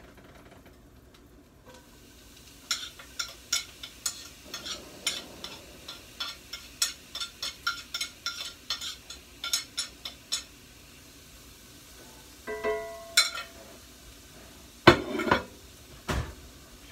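A knife or utensil scraping and tapping chopped green pepper and onion off a plate into a frying pan: a run of quick sharp clicks against the plate, two to three a second, for several seconds. A short ringing clink follows, then a couple of heavier knocks near the end as the plate is set down.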